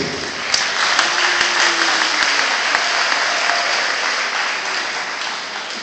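Audience in gymnasium bleachers applauding, dying down toward the end.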